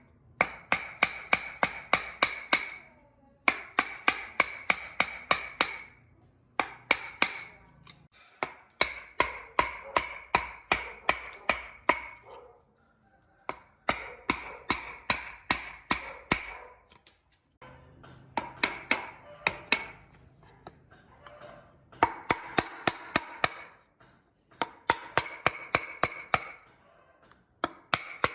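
Repeated hammer strikes with a ringing, metallic tone, about four blows a second, in runs of a few seconds broken by short pauses.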